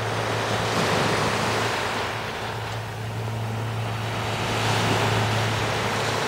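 Small waves washing in on a sandy beach, swelling and easing, with wind buffeting the microphone and a steady low hum underneath.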